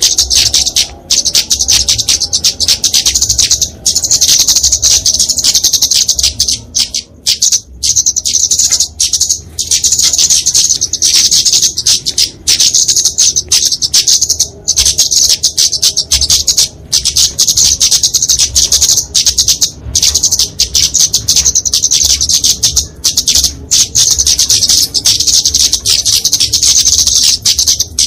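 Flowerpecker (kemade, genus Dicaeum) in combative calling: a loud, dense stream of rapid, high-pitched chirping ticks, broken only by brief gaps.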